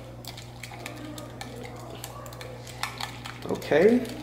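A spoon clinking and scraping against a bowl while a sauce is stirred, in many small irregular clicks. A short burst of voice comes near the end.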